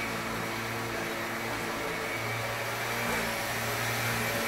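A steady machine hum, a motor running evenly with a low drone.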